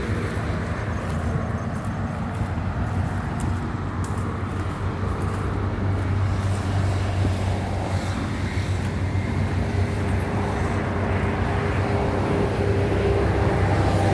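Steady highway traffic noise, a continuous low rumble of road vehicles.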